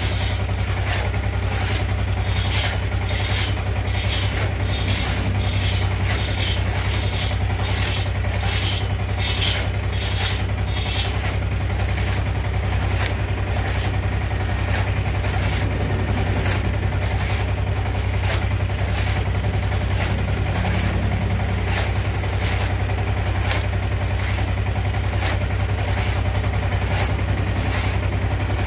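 Long hand rip saws cutting lengthwise through a teak log, the teeth rasping on each stroke about twice a second, brighter in the first ten seconds or so. Underneath runs a steady low engine-like hum.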